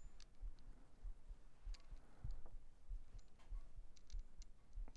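Light, scattered clicks of small baitcaster reel parts being handled and fitted together by hand during reassembly.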